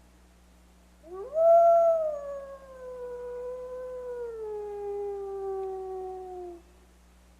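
A wolf howling: one long howl that swoops up at the start and then slowly falls in pitch for about five seconds before it stops. It is loudest at the start.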